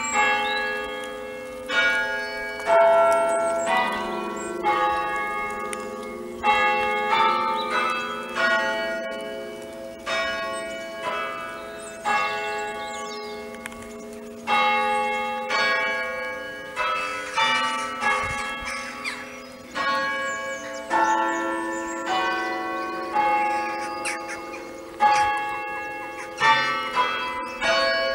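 Church tower bells chimed with an Ellacombe apparatus, hammers striking the hanging bells one at a time. There is roughly one stroke a second in an uneven rhythm on changing notes, and each bell rings on under the next.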